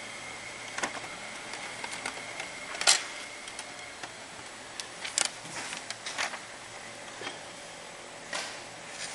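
Samsung CLP-325W colour laser printer running with a steady high whine that stops about four seconds in, with mechanical clicks. This is followed by sharp rustles and clicks as the printed paper sheet is handled.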